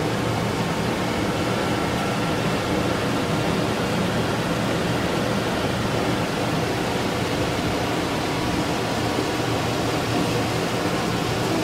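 Blower Door 3 fan running steadily at high speed, depressurizing the house for a blower door test: a steady rush of air with a low motor hum.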